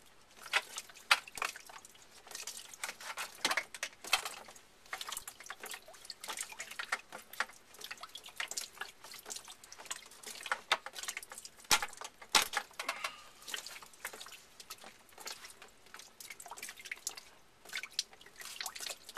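Water dripping in quick, irregular drips from a cut PEX hot-water line: the last water left in the line after the supply was shut off. A few sharper knocks stand out among the drips.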